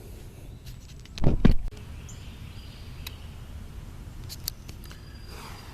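Handling noise as a soldering kit is opened: two dull bumps a little over a second in, then a few light clicks, over steady outdoor background noise with faint bird chirps.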